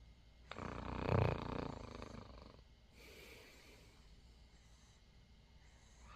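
A newborn baby snoring: one loud snore lasting about two seconds, starting about half a second in, followed by quieter breathing, with the next snore beginning at the very end.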